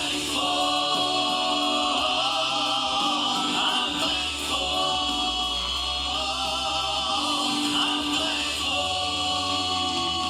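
Vocal group singing a gospel song in harmony, holding long notes with a slight waver.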